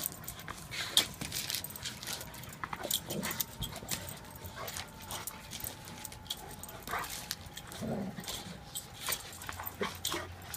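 Bernese Mountain Dogs playing rough: scuffling full of quick sharp clicks and scrapes, with a few short dog vocalizations in between.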